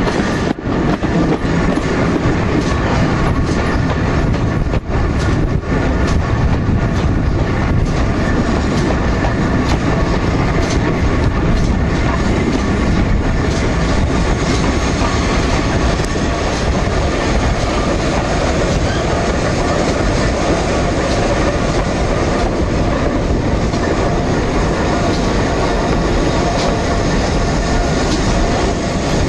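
A slow-moving train heard from on board: a steady, loud rumble of wheels on the track, with a few sharp clicks over the rail joints in the first seconds and fainter ones later.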